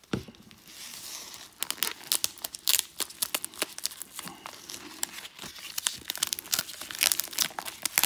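Plastic bubble mailer being torn open by hand: the plastic crinkles and its sealed end tears in a dense run of sharp crackles, after a single knock at the start.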